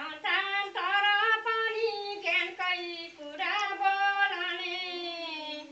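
Women's voices singing a Nepali sangini folk song unaccompanied, in long held notes with short breaks between phrases.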